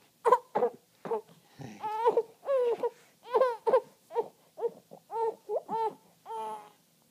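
A baby fussing in a string of short, high-pitched whimpering cries, a few of them drawn out a little longer.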